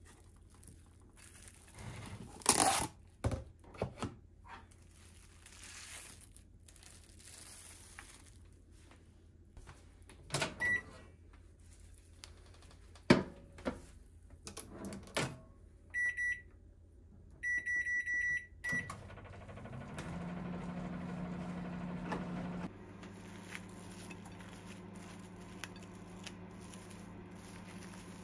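Microwave oven being loaded and started. Handling clicks and knocks lead to a sharp click as the door shuts, then the keypad beeps once and then several times in quick succession. The oven then runs with a steady low hum.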